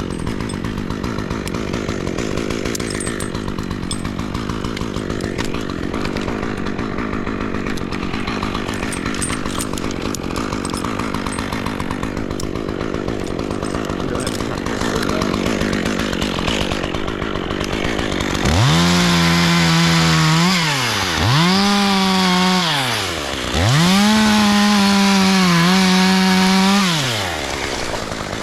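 Chainsaw idling steadily, then opened up to full throttle three times about 18 seconds in, each time holding a high pitch for a second or more before dropping back: the saw making cuts into the tree.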